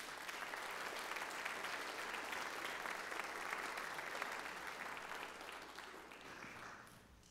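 Congregation applauding, fading away near the end.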